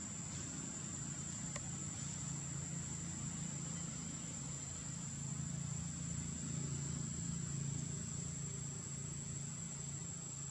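Steady low engine hum, like a motor vehicle idling, growing a little louder after the middle, under a continuous thin high-pitched whine.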